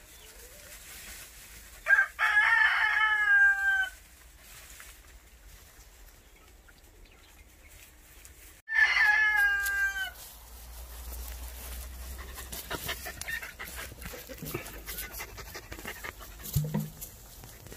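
A rooster crowing twice, about six seconds apart, each crow about two seconds long and falling in pitch at the end. In the second half there is soft scattered rustling, like movement in straw and grass.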